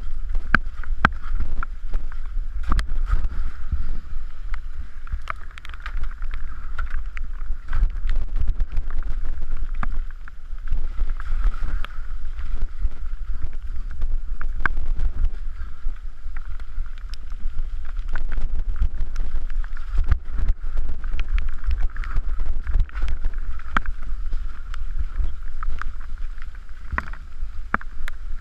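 Mountain bike descending a rough dirt trail at speed: wind rumbling on the camera's microphone, with frequent sharp rattles and knocks from the bike jolting over rocks and ruts.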